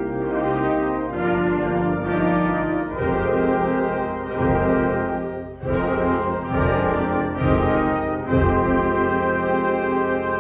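Concert band playing full sustained chords led by brass, with trombones, horns and trumpets prominent. The chords change every second or so, and loud accented attacks come about six seconds in and again near eight and a half seconds.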